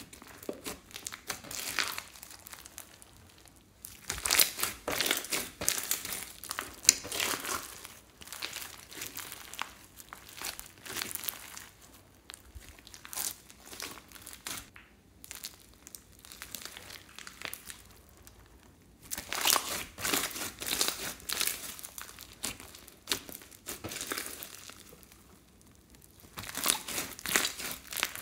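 Hands kneading, squishing and stretching a large clear slime packed with foam beads and glitter: dense, rapid clicks. They come in busy stretches of a few seconds, with quieter handling through the middle.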